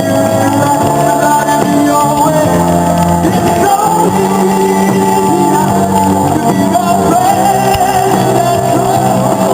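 Loud rock song playing, a singer holding long wavering notes over a steady band.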